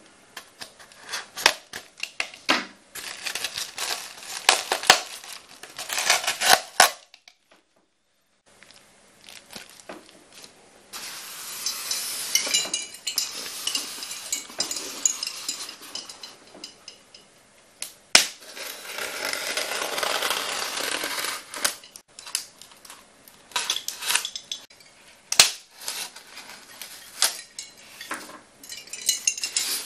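Polystyrene foam packaging being handled and opened: foam rubbing and scraping, with many sharp clicks and taps. About seven seconds in, the sound drops out completely for a second or so.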